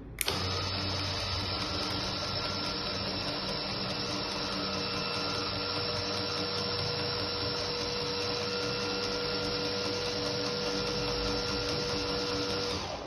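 Electric gate opener motor running steadily as it drives the gate open, a constant whirring drone with a steady whine over it. It stops abruptly near the end, cut off by its limit switch.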